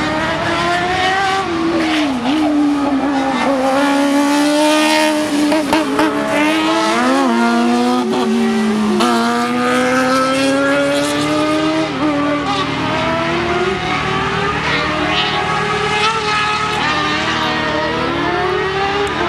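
Race buggy engine revving hard around the circuit. Its pitch climbs and drops sharply several times as it changes up through the gears, and it is loudest as a buggy passes close by.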